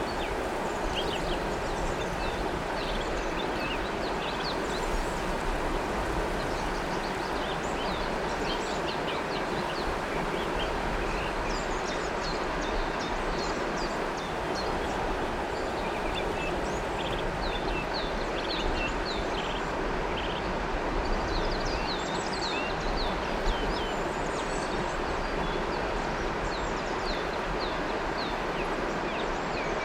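River water running steadily, with small birds chirping in short, high calls throughout, busiest in the second half.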